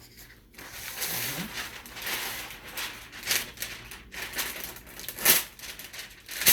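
Parchment paper crinkling and rustling as it is pulled out and handled, with a few sharp crackles.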